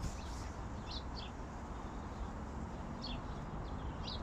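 Wind rumbling steadily on the microphone, with a few short, high bird chirps over it, about a second in and again near the end.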